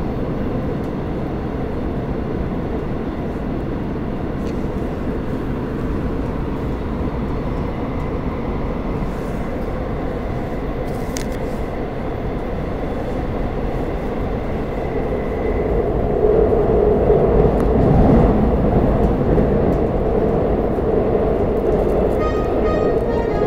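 Inside a Seoul Metro Shinbundang Line subway car running between stations: a steady rumble of wheels and motors on the track, swelling louder about two-thirds of the way through.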